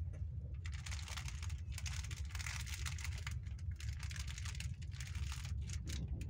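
Passenger train running, heard from inside the carriage as a steady low rumble. From about half a second in to about five and a half seconds, a dense crackling and clicking sits over the rumble.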